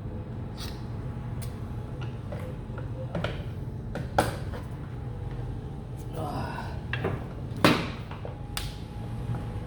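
Indian Scout motorcycle airbox being worked loose by hand from the intakes: scattered clicks and knocks, with the loudest knock about three-quarters of the way through.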